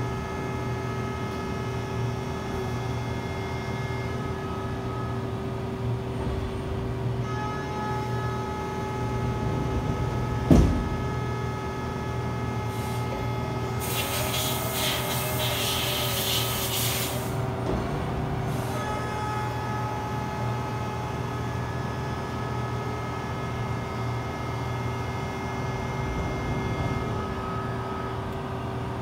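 CNC vertical milling machine face-milling an aluminium bar with coolant: steady spindle whine and cutting hum with several held tones. A sharp knock with a quick falling tone about ten seconds in is the loudest moment, and a hissing burst lasts about three seconds near the middle.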